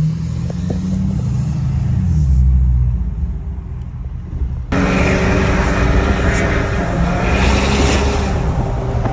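Ford F-350's 6.7 L Power Stroke turbo-diesel V8, running a 180-horsepower tune, with a low, deep rumble as the truck creeps along. About halfway through, the sound jumps suddenly to a louder, fuller engine and road noise.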